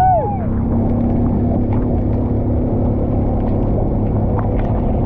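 Steady rumble of an open vehicle driving on a wet road in rain, with scattered light taps.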